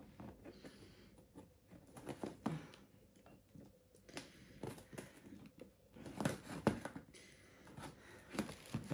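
Cardboard parcel being opened by hand: scattered rustles, scrapes and light knocks of cardboard and packing, with quiet gaps between them and a busier patch near the end.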